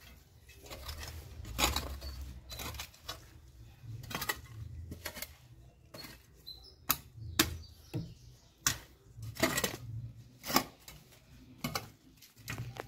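Small hand spade scraping and scooping loose dry soil in a series of irregular strokes as soil is pushed back into a planting hole.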